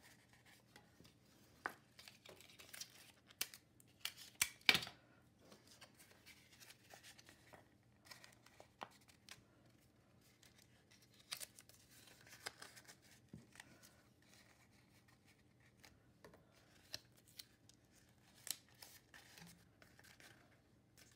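Quiet paper-craft handling: construction paper rustling and clear sticky tape pulled and torn from a desk dispenser, in short scattered bursts with small clicks, the loudest about four and a half seconds in.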